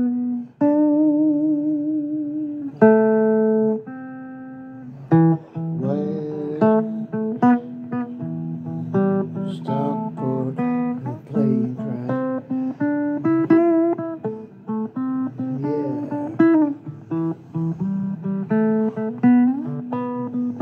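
Guitar playing a slow blues line of single picked notes, some held and bent with a wavering vibrato.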